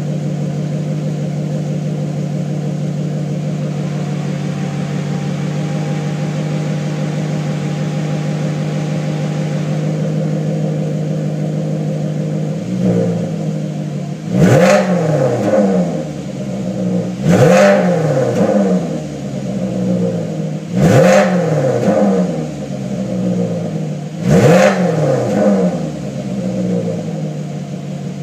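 Maserati Quattroporte Sport GTS's 4.7-litre V8 on its stock exhaust, idling steadily, then revved four times about halfway through: each a quick blip that climbs sharply and falls back to idle, about three and a half seconds apart.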